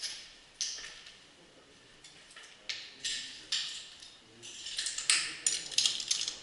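Irregular crunching and scraping, like footsteps on a gritty, debris-strewn concrete floor, bunched more closely together near the end.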